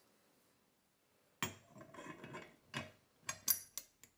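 Metal parts of a hand-cranked meat mincer being handled: after a short quiet there is a scrape, then a run of light clinks and clicks as the cutting plate is handled against the mincer.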